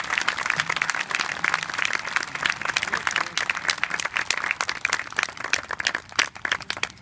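Audience applauding at the end of a song: dense clapping that thins out and dies away near the end.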